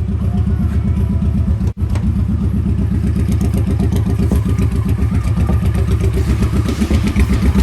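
A vehicle engine running with a rapid, steady low throb, broken by a momentary gap about two seconds in.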